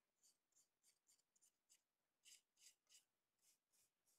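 Faint, soft strokes of a paintbrush's bristles dragging paint across a plastic model aircraft's wing, a dozen or so short strokes at an uneven two to three a second.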